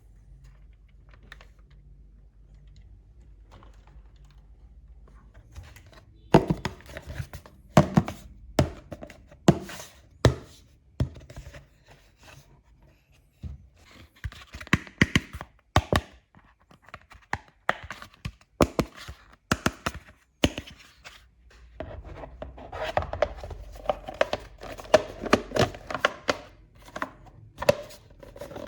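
Small plastic toy kitchen pieces being handled and set down: a quiet first few seconds, then an irregular run of sharp clicks and knocks, busier and mixed with rustling near the end.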